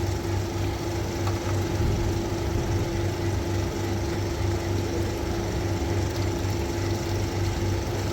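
Toyota Passo Moda's three-cylinder engine idling steadily, a low pulsing hum with a constant mid-pitched tone over it.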